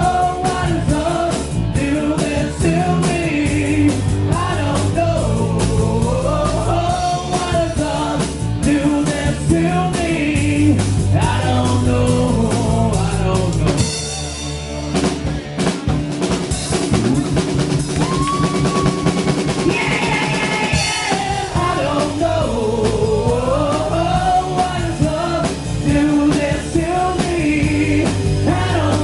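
Live rock band playing an instrumental passage: drums and bass under a wavering melodic lead line. The drums and bass drop out briefly about halfway through, then the full band comes back in.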